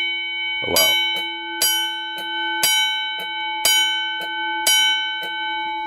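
10-inch railroad crossing signal bell struck by its electric solenoid striker about once a second, five strikes each ringing on in a steady, sustained chime. A lighter tick falls between the strikes.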